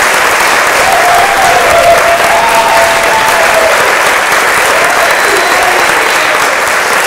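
Audience applauding steadily, with a few wavering raised voices heard faintly over the clapping.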